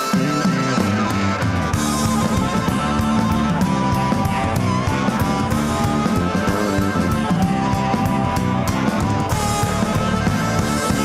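Rock band playing live, an instrumental passage: electric guitar with bass and drum kit, the bass and drums coming in right at the start.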